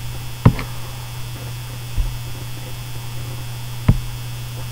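Steady low electrical hum on a webcam recording, broken by two short sharp clicks, one about half a second in and one near the end.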